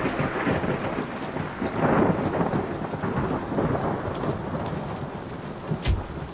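A clap of thunder rumbles and slowly dies away over steady rain, with a short low thump near the end.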